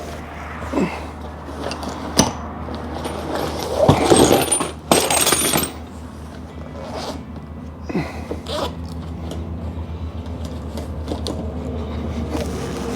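Metal hand tools clinking and scraping against the Jeep Gladiator's steering linkage as the drag link is worked loose: a few sharp clicks, with a longer, louder scrape a few seconds in. A steady low hum sits underneath.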